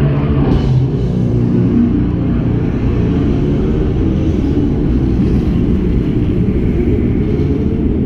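Steady low rumble of wind buffeting an action camera's microphone while a bicycle is ridden along a street.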